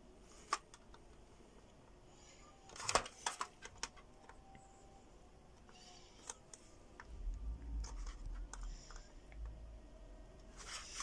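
Faint scratching and small clicks of multimeter probe tips touching and scraping across the LEDs on an aluminium LED floodlight board, with a cluster of louder clicks about three seconds in. A low rumble comes in during the second half.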